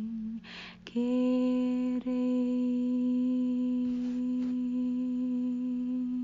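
A woman's voice humming long, steady held notes. A note ends, a breath is drawn about half a second in, then a slightly higher note starts about a second in and is held steadily, with a brief catch about two seconds in.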